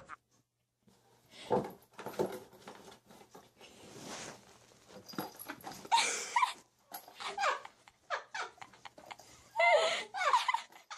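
A pet animal whining and crying in short calls that bend up and down, loudest about six and ten seconds in, with rustling and scuffling between them.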